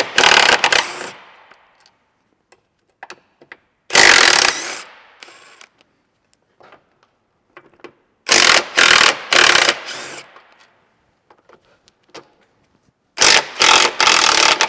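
DeWalt 18V XR cordless impact wrench hammering in short bursts as it undoes the bolts holding a Tesla Model S high-voltage battery pack. It runs once near the start and again about four seconds in, then twice more in quick groups of three trigger pulses. Between the runs are faint clicks of the socket and bolts.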